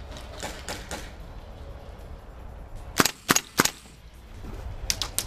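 Airsoft rifle firing three sharp shots about a third of a second apart, about three seconds in, with a few fainter pops early on and again near the end.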